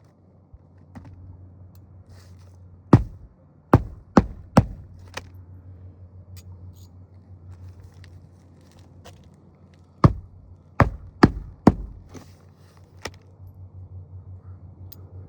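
Hammer driving roofing nails to re-fasten a replaced roof shingle: a run of four quick strikes about three seconds in, another run of four about ten seconds in, and a single strike near the end.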